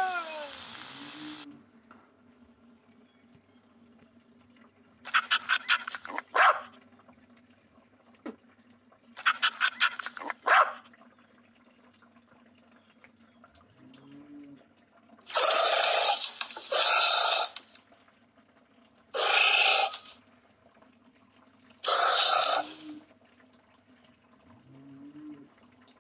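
Recorded animal sounds. A falling, howling fox call fades out at the start, followed by two bursts of rapid stuttering calls. Later come four hissing huffs, of the kind a pangolin makes.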